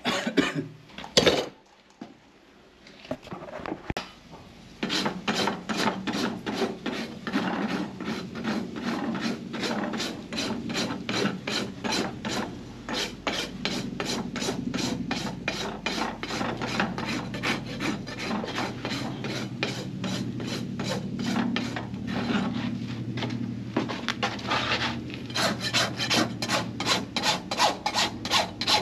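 A farrier's hand rasp filing a horse's hoof propped on a hoof stand, in quick even strokes of about three a second that begin about five seconds in. Two sharp knocks come right at the start.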